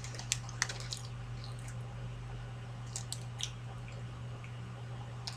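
Wet mouth clicks and lip smacks of people chewing a soft snack, a few scattered faint clicks over a steady low hum.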